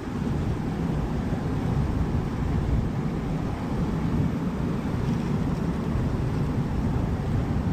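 Wind buffeting the microphone outdoors: a steady, fluctuating low rumble.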